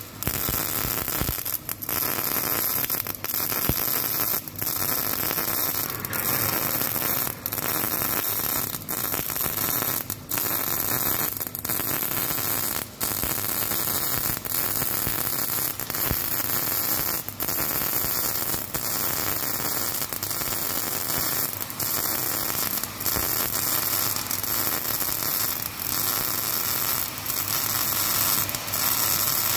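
MIG welding arc on solid wire crackling steadily as a horizontal weld is run on steel, with short breaks in the sound every second or two.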